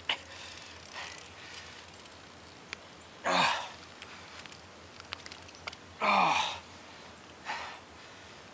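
Two short, heavy exhalations of effort from a man hauling a fishing line up hand over hand through an ice hole, about three seconds apart, with a few faint clicks between them.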